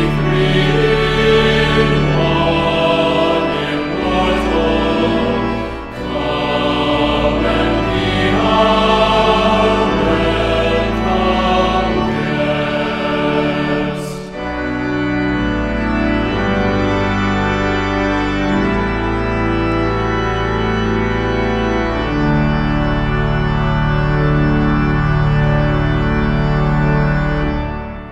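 Church music: a choir singing over organ accompaniment, with the voices dropping out about halfway through and the organ carrying on with sustained chords. It fades out near the end.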